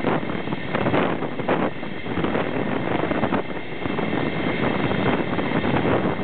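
Wind buffeting the microphone held out of the window of a moving passenger train, over the steady running noise of the coaches on the track, with irregular gusts.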